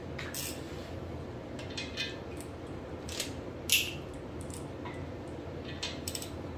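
Scattered metallic clicks and clinks of a socket wrench being fitted to and loosening the main-cap stud nuts on a bare VQ37VHR aluminium engine block, the loudest clink a little under four seconds in.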